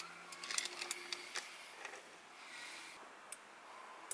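Small handling clicks and taps, a quick cluster in the first second and a half, then a few single ticks, over a faint steady hum that stops about three seconds in.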